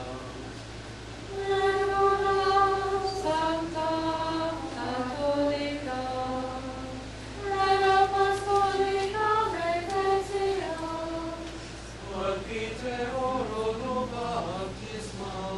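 Voices singing a liturgical chant, a single melody line of long held notes. Two loud phrases begin about a second in and about seven seconds in, and the singing grows softer and more broken near the end.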